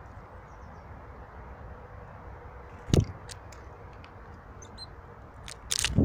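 Small birds, a great tit among them, landing on and pecking at a ceramic seed bowl on a wooden feeder table: a sharp knock about halfway through and a cluster of knocks and clicks near the end. A steady low rumble underlies it, with a few faint high chirps.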